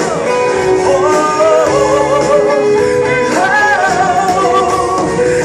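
Live pop-rock band playing, with a voice holding long, wavering wordless notes over the band.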